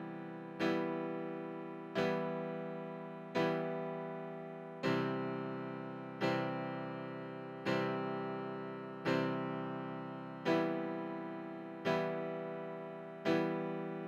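Instrumental background music: slow, evenly spaced chords on a plucked or keyboard instrument, one about every second and a half, each struck and left to ring out.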